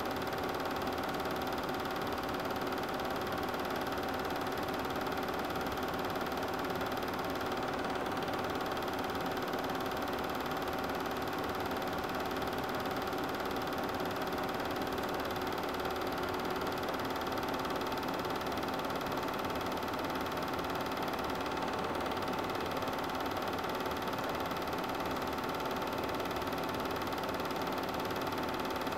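Super 8 film projector running with a steady mechanical hum.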